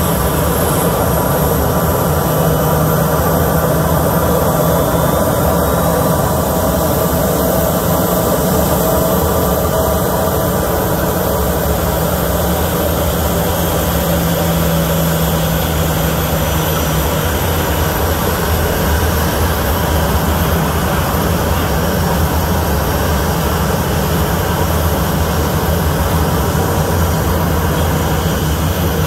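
Boeing 737 airliner's twin turbofan engines running at taxi power as the jet rolls slowly past: a steady, loud whine and rush of noise with a few held tones, unchanging throughout.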